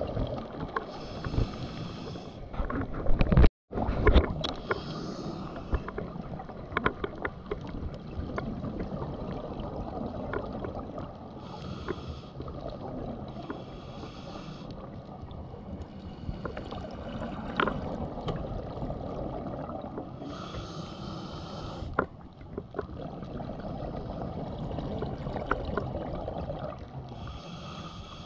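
Underwater sound through a camera housing: a steady low rumble of water, with a scuba diver's breathing bubbles hissing out in bursts of about a second every few seconds. A couple of loud knocks and a momentary drop-out come about three and a half seconds in.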